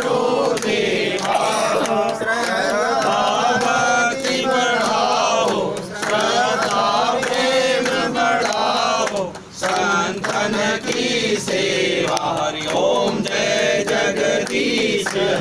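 A group of voices chanting a Hindu devotional hymn together during an aarti, with a short pause about nine and a half seconds in.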